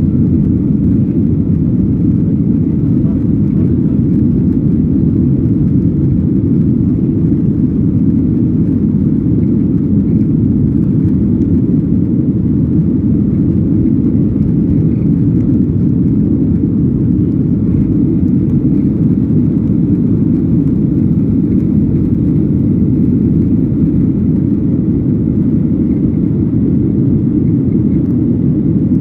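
Steady low rumble of jet engines and rushing air inside the cabin of a Boeing 737 airliner climbing after take-off.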